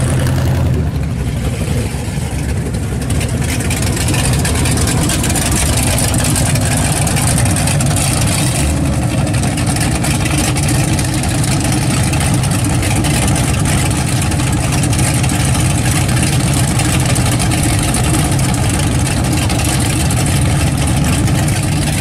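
Muscle-car exhaust: a Chevelle's engine rumbles as it rolls past. About nine seconds in, this gives way to a 1969 Pontiac GTO's V8 idling steadily through its dual exhaust.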